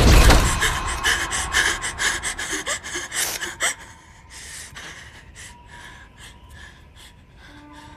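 A person gasping and panting in quick, ragged breaths, loud at first, dropping about four seconds in to softer, slower breaths.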